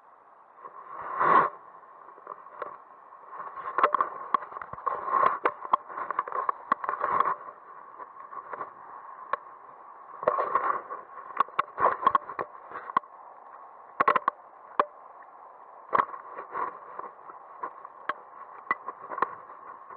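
Irregular rustling, scraping and sharp knocks of hands and body moving through dry grass and reeds close to the microphone, over a steady rush of flowing river.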